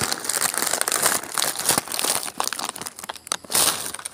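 Close, irregular crinkling and crackling with many quick clicks.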